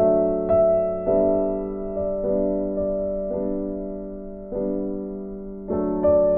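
Background music: a slow keyboard piece, piano-like chords struck about once a second and left to ring and fade.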